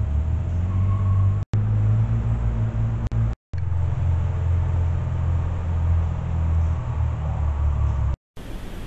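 Steady low rumble, cutting out abruptly three times where short trail-camera clips are joined.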